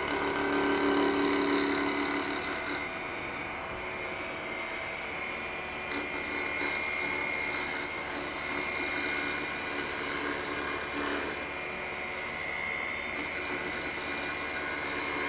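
Wood lathe running with a roughing gouge taking light cuts on a spinning wooden spindle blank, turning the corner off it. A steady motor hum runs under a cutting hiss that swells and eases as the gouge moves along the wood.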